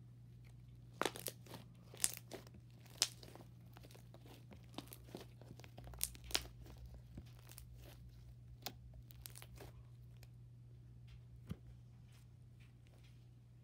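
Light blue slime squeezed and pulled apart by hand, giving irregular sharp crackles and pops. They come thickest in the first few seconds and again about six seconds in, then thin out, over a steady low hum.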